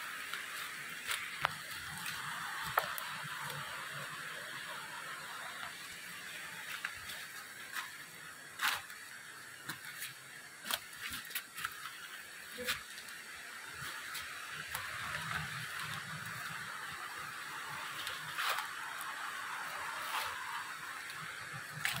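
Footsteps on a leaf-littered forest trail, with scattered sharp snaps of twigs and leaves and some dull thuds, over a steady high hiss of forest background.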